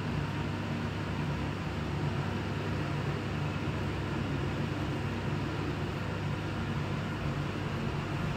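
Steady machine hum with an even airy whir, like an electric fan or motor running, unchanging throughout.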